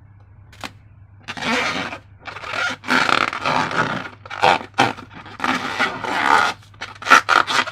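Slime being squeezed and worked by hand, making a run of uneven noisy squelching and crackling sounds that start about a second in and come quicker and choppier near the end.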